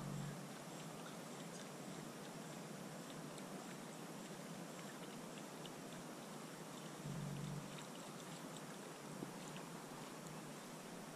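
Faint, steady outdoor hiss with scattered light ticks, and two brief low thumps, one at the start and one about seven seconds in.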